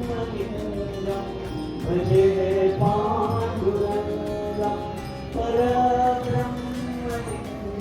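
Devotional Hindu mantra chanting sung over music, in long held phrases of about two seconds each.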